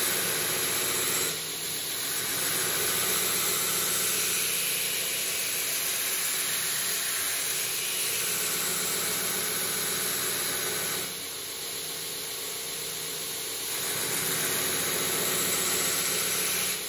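Belt grinder running a coarse 24-grit abrasive belt, grinding the bevel of a steel knife blade held in a jig: a steady rasping hiss over the motor's hum. It drops briefly in loudness about a second in and again for a few seconds past the ten-second mark.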